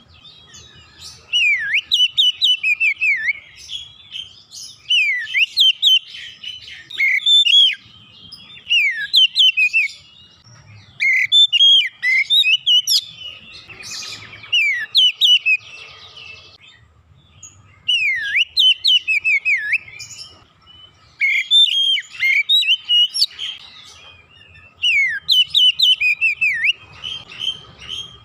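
Oriental magpie-robin singing: a string of rapid, varied whistled phrases, each a second or two long, with short pauses between them.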